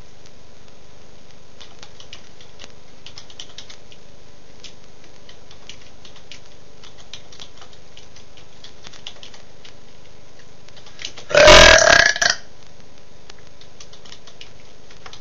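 One loud human burp, about a second long, with a rough wavering pitch, about eleven seconds in. Before it, only faint scattered clicks over a low hiss.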